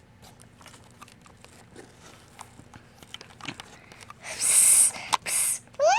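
Faint rustling and small taps of plush toys being handled, then a person hissing 'sss' twice, the first about a second long and the second shorter, in a plush-toy battle between a cat and a Minecraft creeper.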